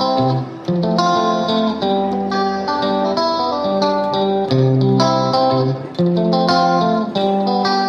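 Background music: a melody of short plucked guitar notes played one after another.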